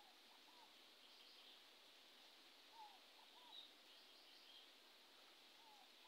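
Faint bird calls: a short low whistled phrase of three notes, a down-slurred note then two short hooked ones, comes three times about three seconds apart, with fainter high chirps between.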